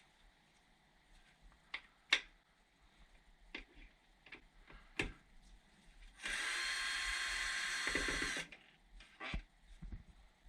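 A power drill runs steadily for about two seconds, a little after the middle, and stops abruptly. Scattered clicks and knocks from handling tools and parts come before and after it.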